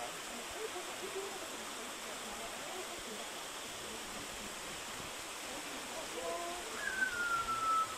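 Steady rush of stream water and small waterfalls spilling into a rock pool, with faint voices in the background.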